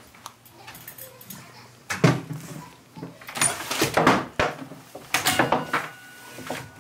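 Household items and clothing in a closet being pushed aside and handled, heard as rustling with knocks in three bouts: about two seconds in, around three to four seconds, and around five seconds.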